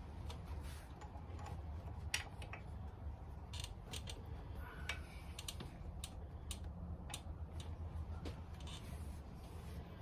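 Light metallic clicks and taps at irregular intervals as motorcycle brake pads and their retaining pin are worked into a rear brake caliper, over a faint low hum.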